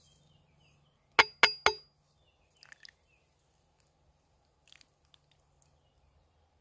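Three quick, sharp clinks of hard objects knocked together, each with a brief ring, followed by a few faint clicks.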